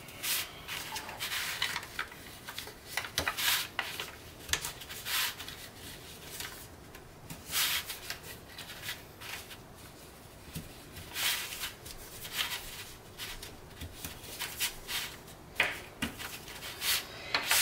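Tant paper rustling and rubbing under fingers and a bone folder as the creases of an origami tessellation are pressed and adjusted, in irregular short strokes.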